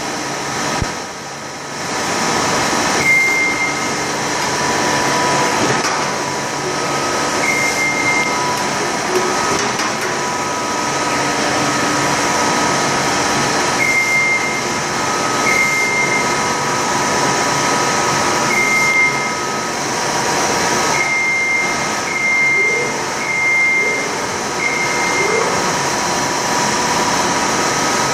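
Steady machinery noise, with short high-pitched beeps about ten times at irregular gaps.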